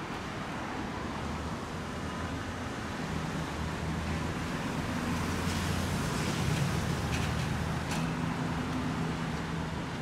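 Lamborghini Huracán Spyder's V10 engine running at low speed as the car drives past, a steady low note that grows louder toward the middle, over city traffic noise.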